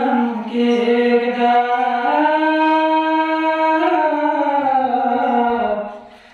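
A man singing a Pashto devotional nazm unaccompanied, drawing out one long held note that steps up in pitch about two seconds in, slides down a couple of seconds later, and fades away near the end.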